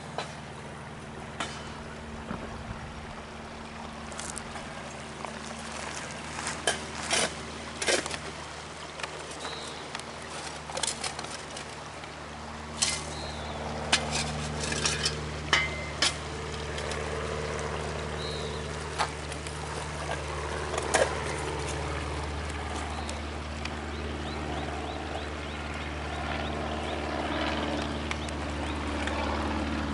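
Shallow river water trickling over stones, with scattered sharp knocks and a steady engine drone that grows louder toward the end.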